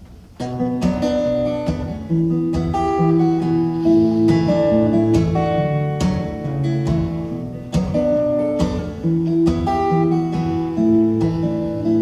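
Acoustic guitar played solo as a song's opening, coming in about half a second in: a steady rhythm of picked and strummed notes ringing clearly, with no voice yet.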